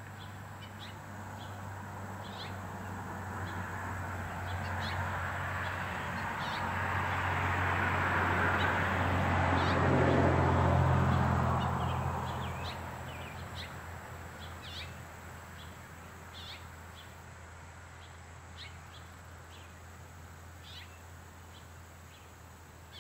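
Male house finch giving short, high chirp calls, scattered irregularly. A broad rushing noise with a low hum swells and fades in the middle and is the loudest sound.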